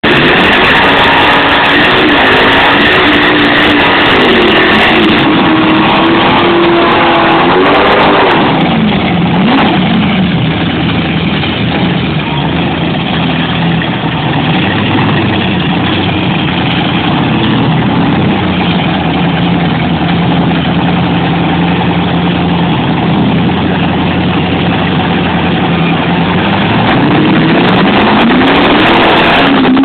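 Pontiac Firebird Trans Am drag car's engine held at high revs during a burnout, with a bright screech over it for the first few seconds. About eight seconds in the revs drop to a low, uneven running note as the car rolls forward, and climb again near the end.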